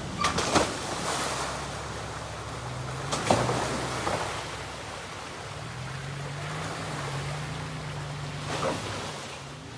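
Toyota FJ Cruiser's V6 engine running steadily as the truck ploughs through a muddy water hole. Mud and water splash against the tyres and body, with sharp loud splashes about half a second in and again about three seconds in.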